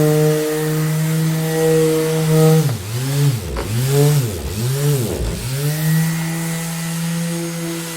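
Orbital sander running with a steady buzzing hum. From about three seconds in, the sound wavers in a repeating swooping pattern for about three seconds, then settles back to the steady hum.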